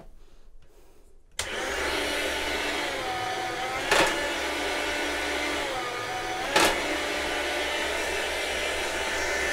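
Chef's Choice 609 electric meat slicer switching on about a second in and running steadily with a whine. Its pitch sags briefly twice as the blade cuts through a hard salami, and each cut ends in a sharp knock. The motor shuts off at the very end.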